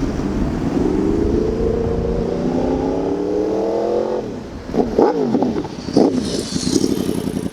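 2020 Yamaha R1's crossplane inline-four engine pulling hard, its revs climbing steadily for about four seconds, then dropping, followed by two short, quick rises and falls in revs.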